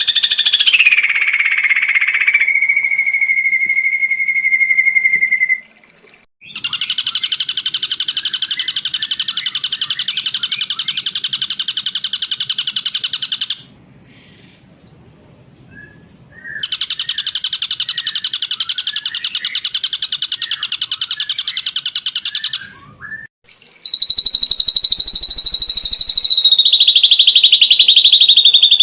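Ashy drongo song: a falling whistled glide and a held whistle, then long, rapid, buzzy trills broken by short pauses.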